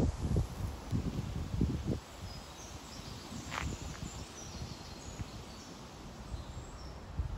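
Wind buffeting the microphone in gusts for about the first two seconds, then quieter outdoor air with small birds chirping high and brief in the background.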